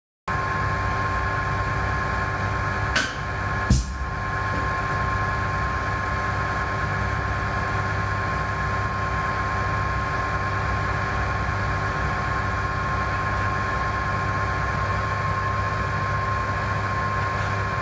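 Steady machine hum with a high, even whine, from the vacuum pump and bench equipment around a Bio-Rad PDS-1000/He particle gun. Two sharp clicks about three seconds in, as the gun's control switch is flipped to release the vacuum.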